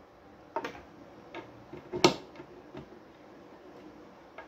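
A handful of light, scattered clicks and knocks, the loudest about two seconds in, from a screwdriver and clipped wires being handled at a car amplifier's terminal block.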